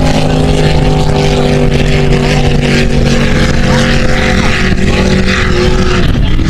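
Motorboat engine running at a steady pitch over a rushing noise. Its tone dips slightly and stops near the end.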